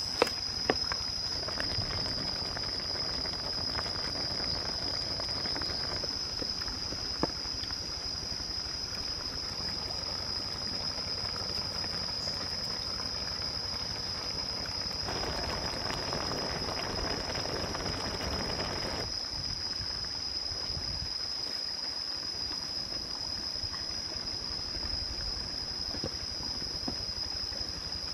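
Fish and vegetables cooking in a wok over a wood fire, with a few sharp clicks of the wooden spatula against the pan; about fifteen seconds in the sizzling swells for a few seconds as chopped green onions are tossed in and stirred. A steady high-pitched tone runs underneath.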